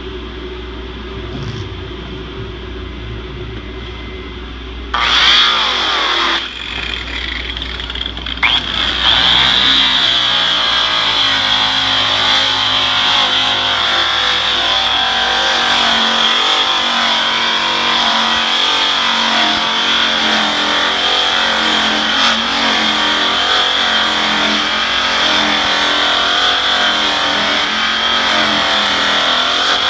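Makita angle-grinder polisher spinning an orange buff loaded with brown rouge against aluminium diamond plate: a high, steady motor whine over the scuffing of the buff on the metal. The tool runs in a short burst about five seconds in, then steadily from about nine seconds in.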